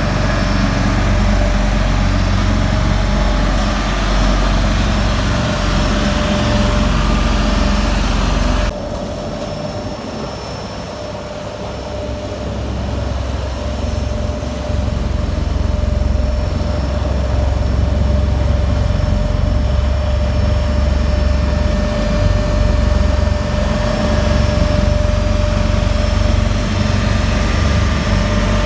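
Diesel engine of a Caterpillar CB634D double-drum vibratory roller running steadily as the roller drives on gravel. About nine seconds in the sound cuts abruptly to a quieter level, then grows louder again over a few seconds as the roller comes nearer.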